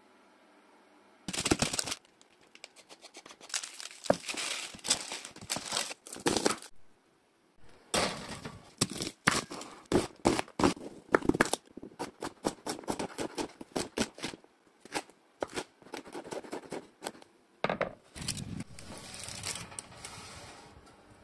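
A kitchen knife chopping vegetables on a wooden cutting board, many quick short strokes through the middle. Rustling and handling noises come before it, and a scraping, rushing noise comes near the end.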